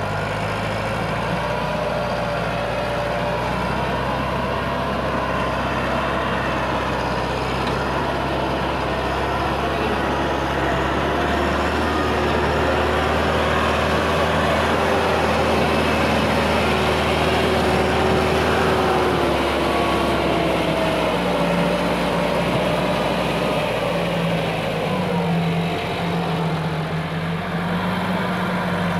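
Massey Ferguson 375 tractor's four-cylinder diesel engine running steadily under heavy load as it pulls a loaded sugarcane trolley. The engine note shifts a little in pitch in the second half.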